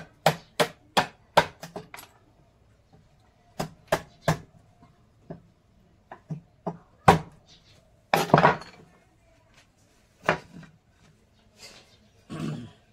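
Hand tools knocking on wood: a quick run of about seven sharp knocks, about three a second, then scattered single knocks and two short scraping bursts.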